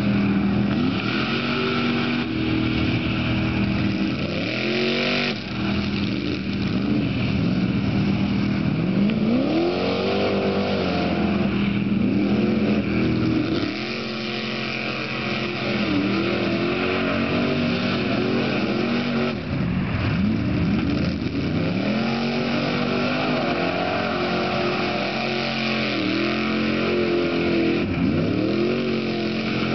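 Off-road vehicle engine revving hard in mud, its pitch surging up and falling back again and again, over a steadier engine drone.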